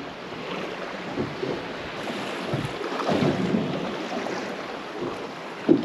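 Wind buffeting the microphone and sea water lapping and slapping irregularly against the hull of a small fishing boat.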